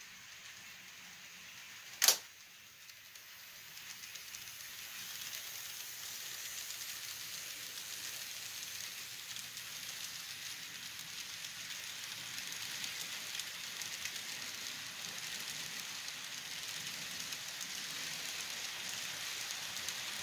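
Model passenger train rolling past on the layout track: a steady hiss and crackle of small wheels on rail and the locomotive's motor, building about four seconds in and holding. A single sharp click comes about two seconds in.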